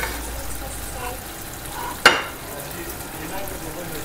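Creamy sauce sizzling and bubbling in a frying pan as salmon fillets are laid into it, with one sharp clack of a utensil about two seconds in.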